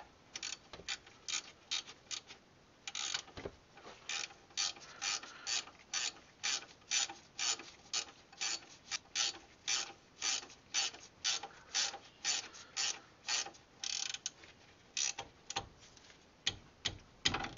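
Hand socket ratchet clicking in quick, even back-strokes, about two and a half a second, with a couple of short pauses, as a brake caliper bracket bolt is run in and tightened.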